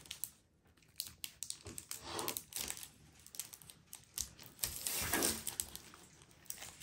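Foil Pokémon booster pack wrapper crinkling and crackling under the fingers as it is torn open: irregular small crackles, louder about two seconds in and again about five seconds in.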